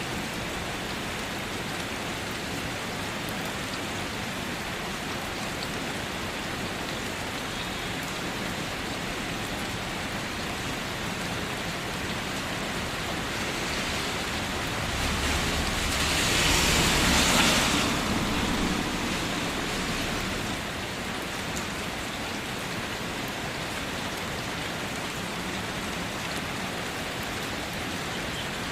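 Steady rain falling on a car roof, an even hiss of drops. About halfway through it swells louder for a few seconds, with a low rumble underneath, then settles back.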